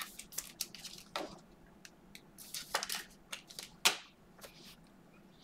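Hands tearing open a Panini Mosaic football card pack wrapper and handling the cards inside: a string of short crinkles and clicks that thins out in the last second or so.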